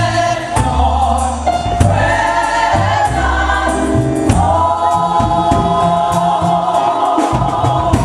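Choir singing gospel music in sustained chords over a bass line and light percussion.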